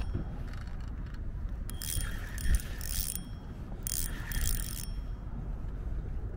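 Fishing reel whirring in several short bursts of about half a second each as line is cranked in against a hooked fish, over a low rumble.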